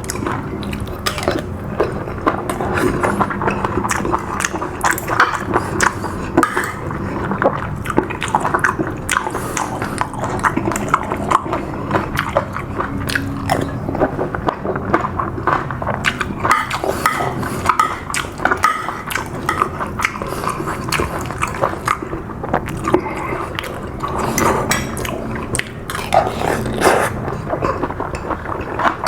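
A person chewing and biting food close to the microphone, a dense, irregular run of small clicks and smacks.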